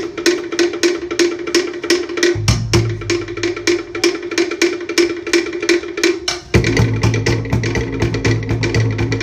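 Cook Islands drum ensemble: wooden slit log drums (tokere) struck in a rapid, even rhythm, joined about two seconds in by a deep skin drum (pa'u). The sound changes abruptly about six and a half seconds in, with the deep drum louder.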